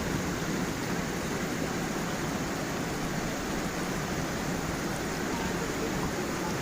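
A gentle stream and small waterfall flowing steadily: an even rush of water with no breaks.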